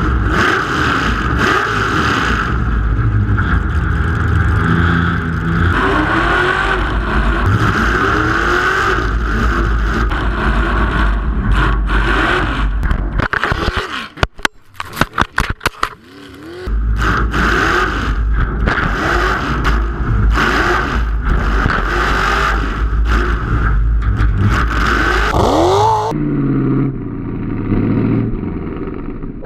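Truck engine with straight vertical exhaust stacks revving hard and repeatedly, over a steady hiss of wind and rushing air. About halfway through, the engine drops out for a few seconds into rapid, irregular clicking and crackling as the hood-mounted camera comes loose and tumbles, then the revving resumes. Near the end the engine sound turns duller and more muffled, with one rising rev.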